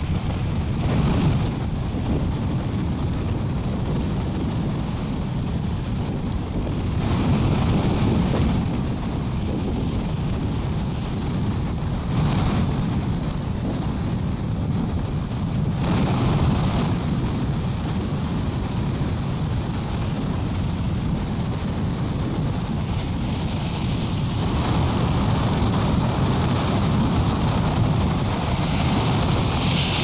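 Strong wind buffeting the microphone over the rush of rough sea surf, swelling and easing every few seconds.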